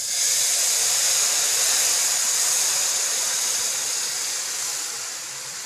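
Sugar syrup poured into semolina roasted in hot oil in a kadhai, setting off a loud hissing sizzle that starts at once and slowly fades.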